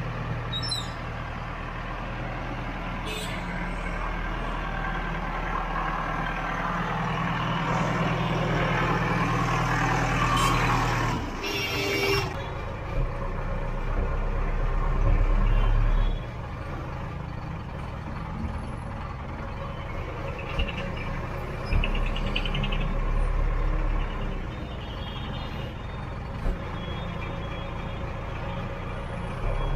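JCB backhoe loader's diesel engine running steadily as the machine is driven on a test run after its torque converter was restored, heard first in the yard and then from inside the cab after a sudden change about eleven seconds in.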